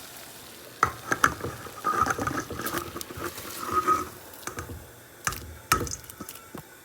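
Bulgur wheat being added to a pot of boiling water: gurgling, splashing water through the middle, with sharp knocks against the pot about a second in and twice more near the end.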